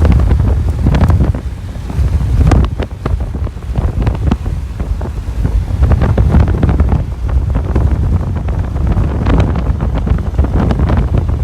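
Strong wind buffeting the microphone, a loud, steady low rumble broken by frequent crackles.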